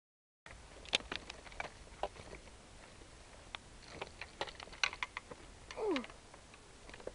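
Irregular light clicks and taps as a landing net and pole are handled and swung in over a seat box, with a netted carp in the net. About six seconds in there is a short falling pitched sound.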